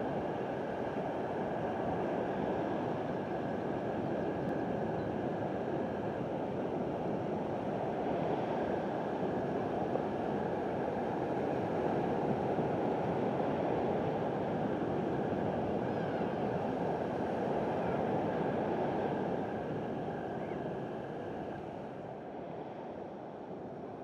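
Steady wash of sea surf on a rocky shore, an even noise that eases down near the end.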